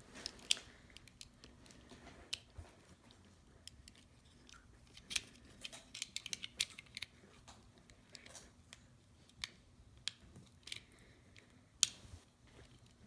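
Small screwdriver prying and twisting between the plastic base and metal body of a 1:64 diecast model car: scattered light clicks and scrapes as the base is worked loose.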